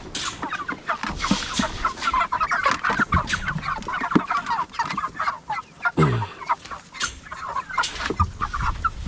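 A flock of meat chickens clucking, many short calls overlapping continuously, with a sharp knock about six seconds in.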